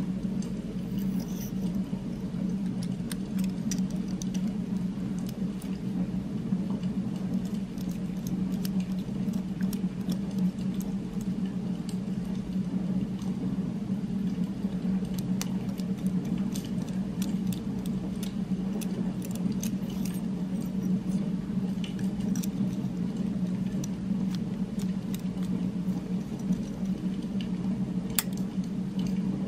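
A steady low droning hum from a background ambient-noise track, unchanging throughout, with scattered small metallic clicks and taps of the pen's chrome parts being handled.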